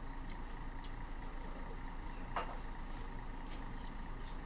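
Close-up eating sounds of someone chewing mango and smacking their lips, with one sharp click about halfway through, over a steady low background noise.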